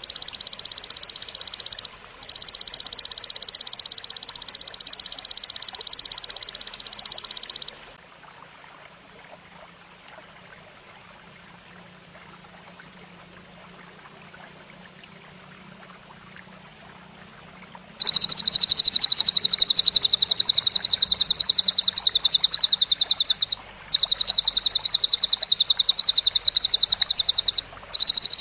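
Grasshopper (belalang) stridulation: a loud, high, rapidly pulsing buzz that runs for several seconds with a brief break, drops away to faint background for about ten seconds in the middle, then starts again with two short breaks.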